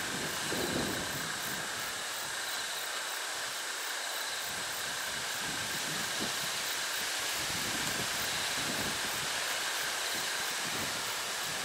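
Steady outdoor background hiss with a faint high pulsing buzz that comes and goes, and a few soft handling noises as a tent guyline is pulled taut at a stake.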